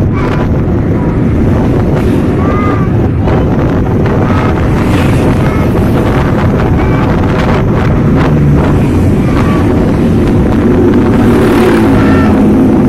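Motorcycle engine running steadily while riding, with wind rushing over the microphone, heard from the pillion seat.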